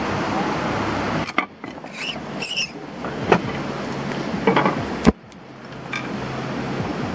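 Steady rush of stream water, cut off about a second in; then a handful of sharp clicks and light taps as a small oil lamp with a glass chimney is handled and lit, the loudest a sharp click about five seconds in, before the rushing water sound comes back.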